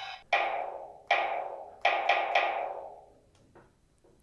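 Toy electronic finger drum kit playing drum sounds through its small built-in speaker as its pads are tapped with a finger: five hits, each ringing out and fading, the last three in quick succession.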